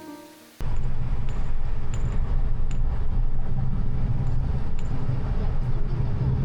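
Soft piano music fades out, then a steady low rumble cuts in suddenly, with a few faint light ticks over it.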